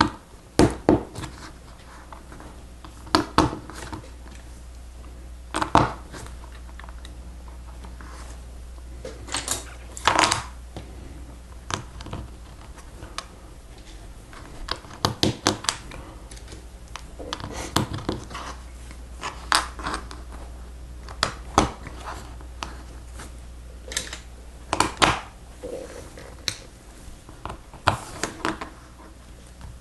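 Lego Technic plastic pieces clicking, snapping and knocking together as they are handled and pressed into place, in irregular sharp clicks with pauses between them.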